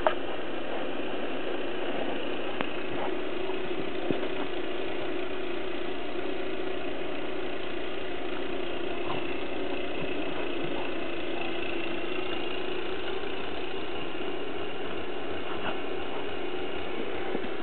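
A steady engine-like drone whose pitch wavers slightly, with a few faint clicks.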